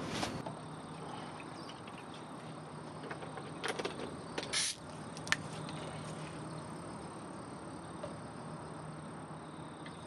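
Steady high-pitched insect trill over a soft outdoor hiss, with a few short clicks and a brief rustle about four to five seconds in.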